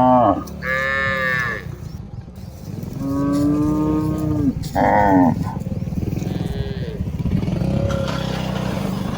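Cattle in a herd mooing, about five separate calls in turn: one higher-pitched call about a second in, and longer, lower calls in the middle.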